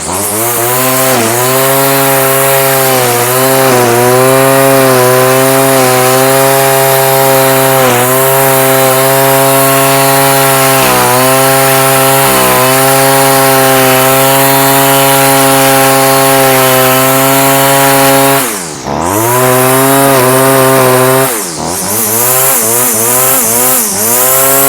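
Stihl FS46 string trimmer's two-stroke engine revving up to full throttle and cutting, its pitch sagging in small dips under load. The throttle is let off twice near the end, the revs falling and climbing back each time. It runs smoothly at full throttle on a newly fitted carburetor kit.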